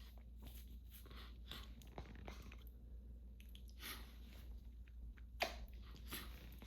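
Faint, scattered small clicks and short sniffs from a person's nose and mouth between allergy sneezes, with one sharper click about five and a half seconds in.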